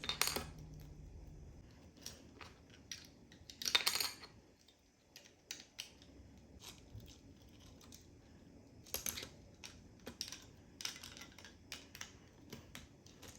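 Small plastic building-brick pieces clicking and tapping as a brick figure is fitted into a brick tractor model. There are light, scattered clicks throughout, with louder rattles about four seconds in and again around nine seconds.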